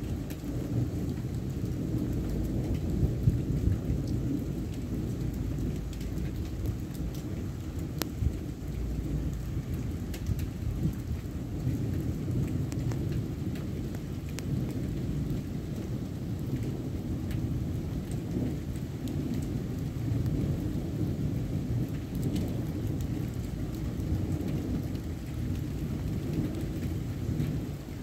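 Thunderstorm: steady heavy rain with thunder rumbling low underneath, and scattered sharp ticks of drops hitting close by, one louder crack about eight seconds in.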